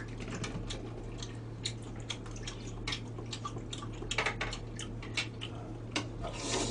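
Eating at a table: scattered small clicks of metal spoons and chopsticks against bowls and plates, with a couple of brief slurps or chewing noises, over a steady low hum.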